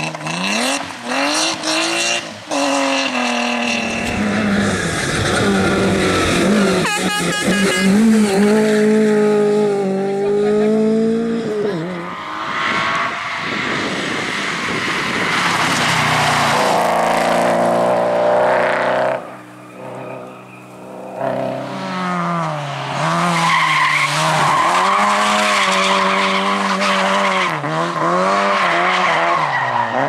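Rally-sprint cars, BMW 3 Series and a Lada among them, with their engines revving hard and the pitch climbing and dropping again and again through throttle blips and gear changes. Tyres squeal as the cars slide through the corners. About two-thirds of the way through it goes quieter for a couple of seconds.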